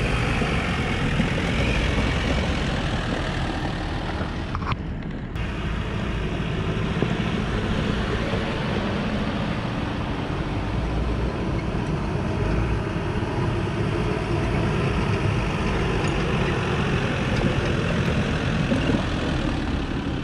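Off-road 4x4 vehicle being driven: steady engine and tyre noise with a heavy low rumble.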